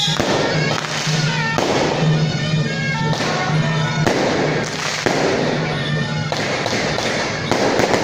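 Strings of firecrackers crackling in a dense, continuous rattle, broken by short gaps, over procession music with a repeated low note.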